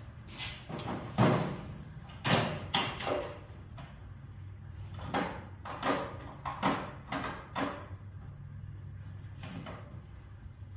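Irregular hard knocks and clunks of objects being handled at a workbench, about ten in all with two clusters around the second and the sixth-to-eighth seconds, over a steady low hum.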